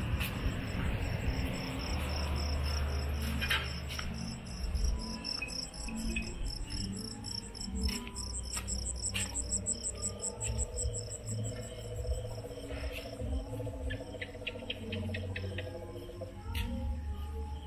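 Crickets chirping in a fast, pulsing trill that swells and fades around the middle, over a steady low rumble with scattered clicks.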